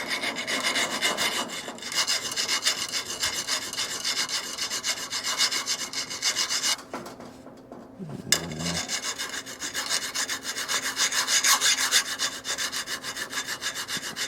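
Hand file scraping back and forth over the welded joint of a steel bandsaw blade, filing the weld's stick-out flush on the blade's back. The strokes run quickly and evenly, with a short pause near the middle before they resume.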